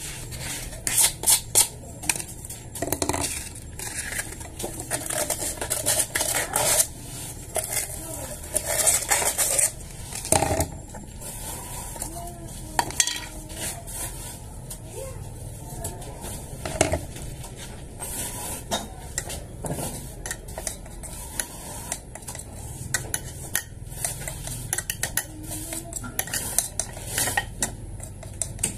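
Irregular clinking, tapping and clattering of hard objects being handled, busiest and loudest in the first ten seconds.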